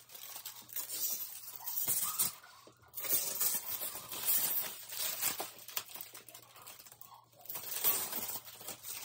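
Protective plastic wrap being peeled and pulled off a 3D printer's AMS filament unit, crinkling and tearing in irregular bursts with a couple of short pauses.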